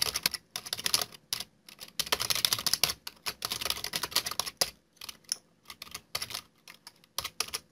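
Computer keyboard typing: quick, irregular runs of keystrokes with short pauses between them.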